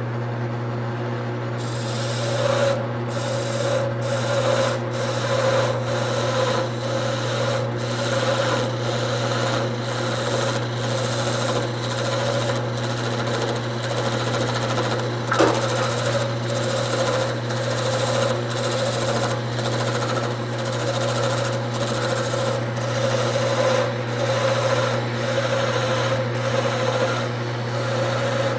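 Wood lathe motor humming steadily while a parting tool cuts into the spinning wood with a scraping sound. The tool is fed in a little at a time and backed off to keep its tip cool, so the cutting comes in pulses about every 0.7 s. There is one sharp click about halfway through.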